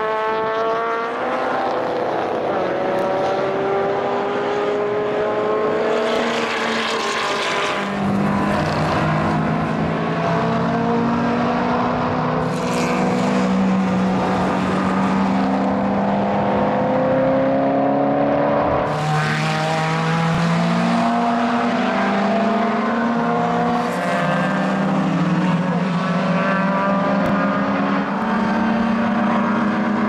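Several historic racing cars at full throttle, their engine notes overlapping and rising as they accelerate away through the gears. From about eight seconds in a low engine note dominates, from the Corvettes' V8s.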